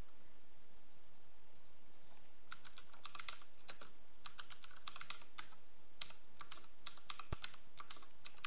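Computer keyboard keystrokes typing in quick runs with short pauses, starting about two and a half seconds in, as a username and password are entered. There is one dull knock about seven seconds in.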